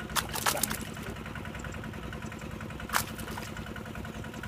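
A small engine running steadily with an even, rapid pulse, with a few short sharp slaps in the first second and a louder one about three seconds in.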